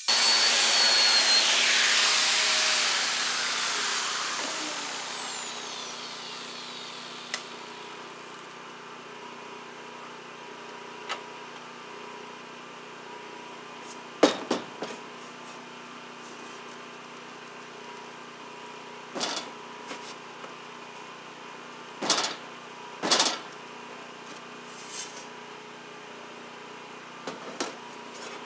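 Angle grinder with a sanding disc grinding a rusty steel plate, then released and spinning down with a falling whine a few seconds in. After that a generator engine runs steadily underneath, with several sharp clanks as the steel plates are handled on the metal bench.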